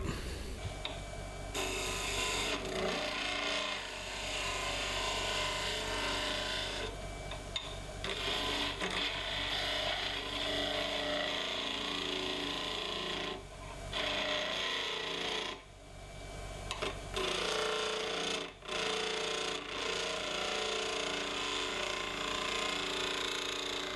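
A hand-held turning tool cutting a spinning olive-wood blank on a wood lathe: a steady scraping cut over the running lathe, broken by a few short gaps where the tool comes off the wood, about two-thirds of the way through.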